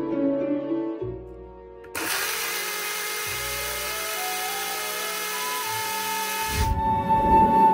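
Vitantonio personal bottle blender's motor switches on suddenly about two seconds in and runs steadily for nearly five seconds, blending blackberries with milk, then stops abruptly.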